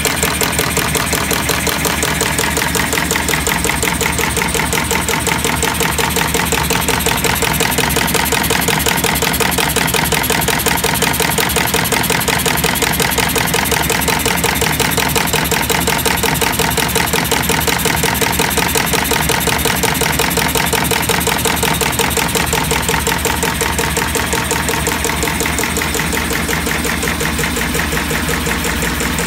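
Sisma BKF/XL laser bismark chain-making machine running, a rapid, steady mechanical clatter as it forms gold wire into bismark chain.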